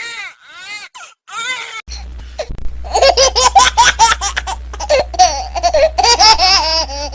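A baby's short wavering cries, then from about two and a half seconds in a run of quick, choppy baby laughter and squeals over a steady low hum.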